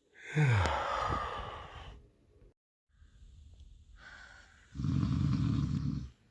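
A person snoring: a loud, low, rattling snore of over a second near the end. About half a second in there is a drawn-out sound falling in pitch.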